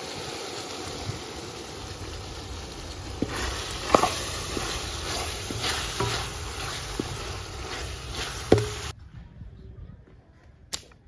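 A wooden spoon stirring a wet minced-meat and vegetable filling in a steel bowl: a steady wet mixing noise with a few sharp knocks of the spoon against the bowl. The sound cuts off suddenly about nine seconds in, leaving a quiet outdoor scene with one sharp click near the end.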